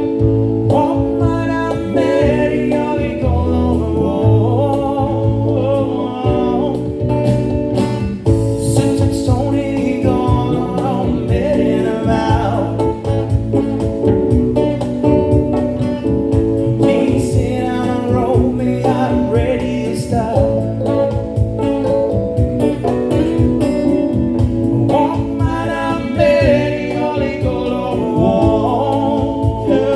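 Live band music: a song played on guitar with a singing voice over a steady beat.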